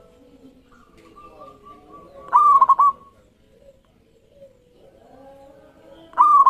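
Zebra dove (perkutut) cooing: two loud coo phrases about four seconds apart, the second starting near the end, each a short rising note followed by a quick run of clipped staccato coos. Fainter cooing continues between the phrases.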